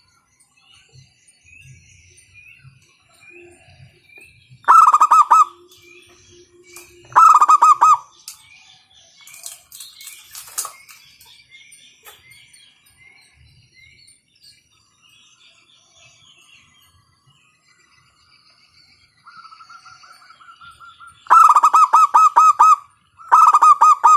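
Zebra dove (perkutut) cooing loudly in rapid, staccato pulsed phrases: two bouts about five and seven seconds in, a softer phrase later, then two more loud bouts near the end. Small birds twitter faintly in the background.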